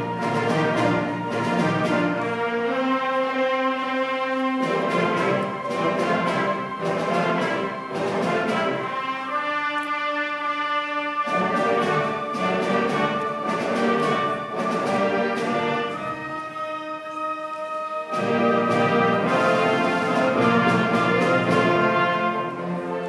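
Symphony band playing, brass to the fore. Full-ensemble passages alternate a few times with thinner stretches where the low parts drop out and only higher held chords sound.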